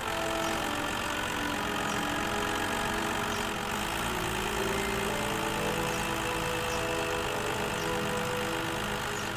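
Cartoon engine sound effect for a tow truck, running steadily while it drives with a pickup in tow.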